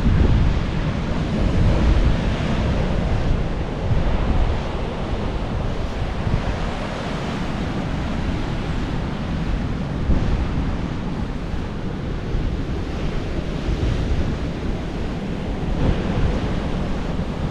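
Sea surf washing against the rocky shore, with wind rumbling on the microphone. A steady rushing noise that swells and eases a little.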